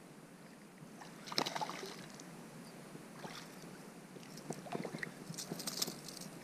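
A hooked smallmouth bass splashing at the surface as it is played in and swung up out of the water, with one sharp splash about a second and a half in. Near the end comes a flurry of smaller splashes and dripping water.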